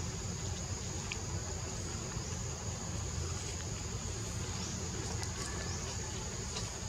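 Forest ambience: a steady high-pitched drone of insects over a low rumble, with a few faint clicks.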